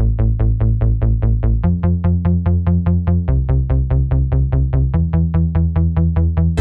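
Electronic background music: a synthesizer bass line of short, even pulses, about five a second, stepping to a new note roughly every second and a half.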